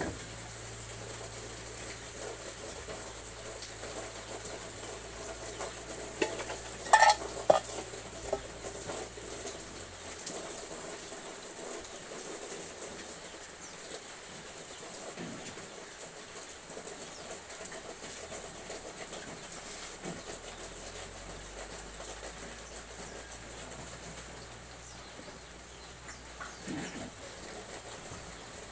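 Food sizzling steadily in a wok over a wood fire, with a short run of clinks and knocks from kitchen utensils about seven seconds in.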